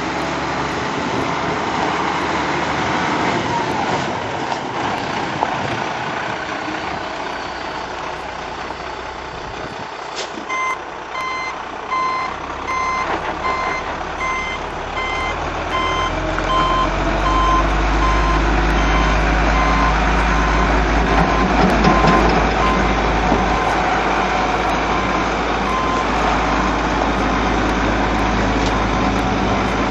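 A diesel Freightliner FL-series tractor unit runs as it manoeuvres on gravel. About a third of the way in a reversing alarm starts beeping steadily, about one and a half beeps a second, and it stops near the end. Partway through, the truck's engine grows louder and heavier.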